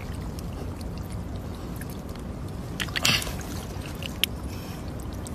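A hand sloshing and groping in shallow muddy water, digging in the mud for an eel, with one short louder splash about three seconds in, over a steady low rumble.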